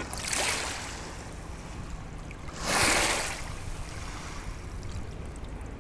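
Sea waves washing in, with a larger wave surging and falling back about three seconds in, over a steady low rumble.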